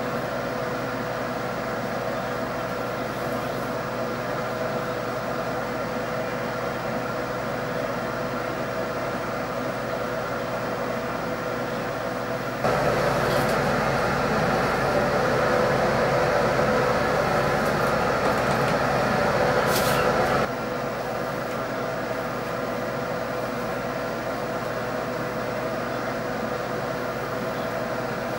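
A steady droning hum with a few held tones, louder and fuller for about eight seconds in the middle.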